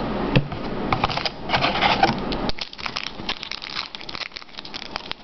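Baseball card pack wrapper crinkling and tearing as it is opened, with dense crackling for the first two and a half seconds. After that come lighter, scattered crinkles and clicks as the cards are handled.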